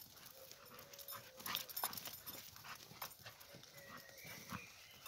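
An American Staffordshire terrier and a border collie puppy play-fighting on grass: quiet scuffling and panting, with a faint thin whine in the second half.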